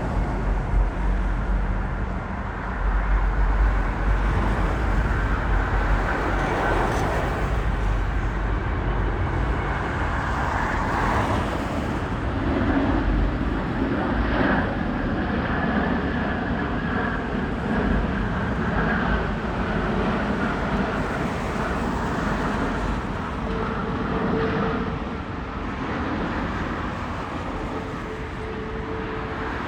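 Airbus A350-1000 airliner on descent to land, its Rolls-Royce Trent XWB-97 turbofans making a steady jet rumble, deepest in the first several seconds, mixed with road traffic.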